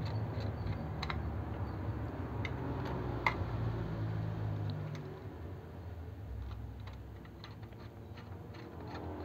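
Small scattered metal clicks and ticks of a screwdriver working a screw in the finned aluminium heat sink of a car stereo head unit, with light handling knocks on the chassis; one sharper click comes a little over three seconds in. A low steady hum sits underneath and fades about five seconds in.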